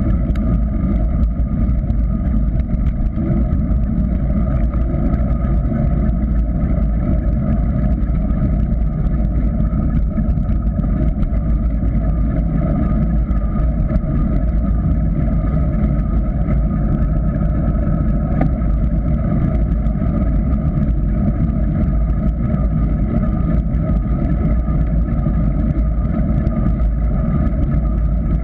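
Steady wind rush and tyre rumble of a mountain bike coasting downhill on asphalt, picked up through a bike-mounted GoPro Hero 3 in its waterproof housing, which turns it into a constant low, boat-like drone.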